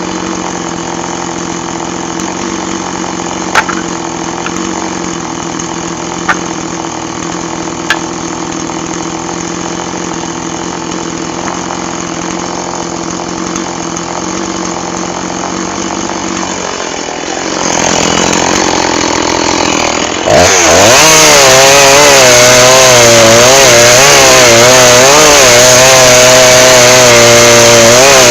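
Two-stroke chainsaw running steadily at a low speed, with three sharp clicks in the first eight seconds. About two-thirds of the way in it is opened up to full throttle, and its pitch then wavers as it saws through firewood.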